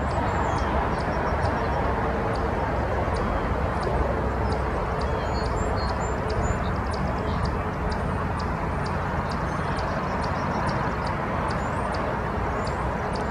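Steady outdoor background of a field edge in spring: an even rumble and hiss, with faint bird chirps and a faint high ticking about two or three times a second.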